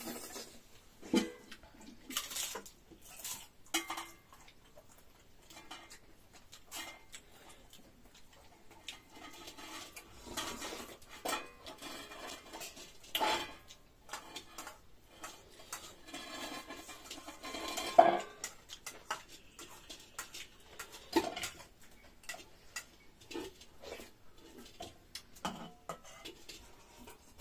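Dishes and utensils clinking and knocking at irregular moments as a meal is eaten, busier for a stretch in the middle, with the sharpest knock about two-thirds of the way through.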